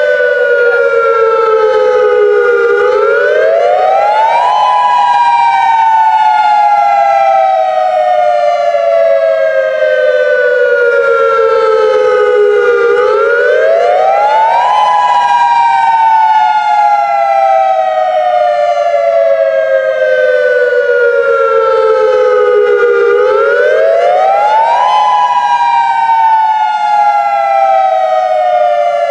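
Federal Signal Modulator 3012 electronic outdoor warning siren sounding its dual-tone attack signal: two close pitches together that rise quickly, then fall slowly in a long wail, three times about every ten seconds.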